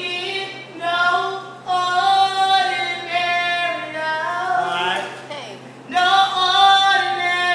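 A woman singing in long, held phrases, with a brief sliding run of pitch about halfway through.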